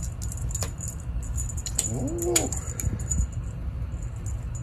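Feathered wand cat toy jingling and rattling in a rapid patter of light ticks as it is flicked about, with one short rising-and-falling vocal call about two seconds in.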